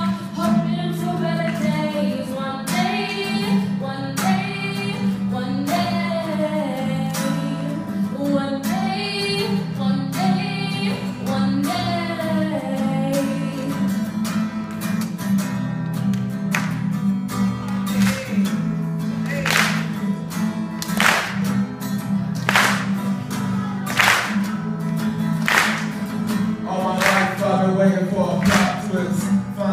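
A young woman sings a slow song with acoustic guitar accompaniment. Around the middle her voice drops out for several seconds and sharp guitar strums stand out, then the singing comes back near the end.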